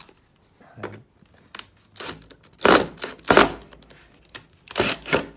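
Several short scraping and knocking bursts as a scrap-wood zero-clearance insert is handled and seated in the table saw's throat around the blade. The loudest two come about halfway through.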